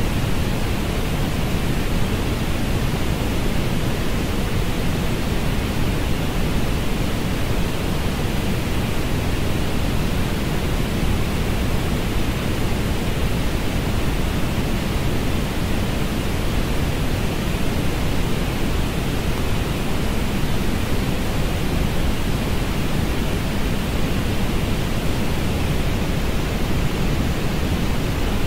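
Steady synthetic orange noise: an even, unbroken hiss weighted toward the low end and duller at the top, for masking sound or sleep.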